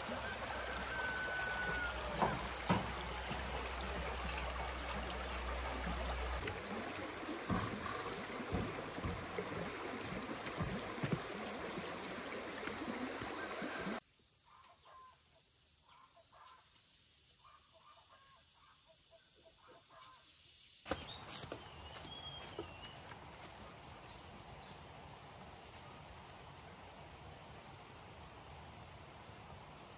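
Outdoor ambience that changes abruptly twice. First comes rustling with scattered knocks and a few bird whistles, then a quieter stretch. Near the end, birds call and insects trill steadily.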